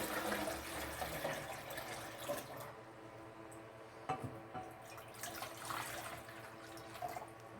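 Water pouring into a container, running steadily and then tapering off about two and a half seconds in, followed by a few faint drips and small clicks.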